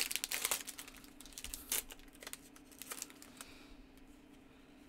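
Foil trading-card booster pack wrapper being torn open and crinkled in the hands. There is a dense crackling in the first second, then scattered crinkles that die away over the last second or so.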